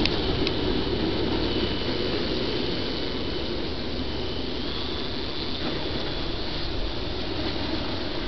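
Remote-control model aircraft flying, its motor a faint thin high whine that steps up in pitch about halfway through, over a steady rushing noise.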